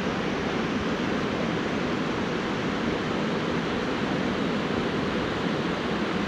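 Creek water rushing steadily over rocks, an even unbroken noise.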